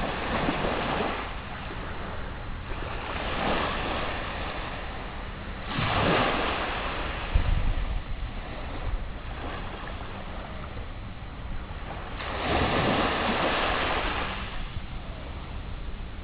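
Sea waves washing in, four surges that each swell and fade over a second or two, over a steady low rumble.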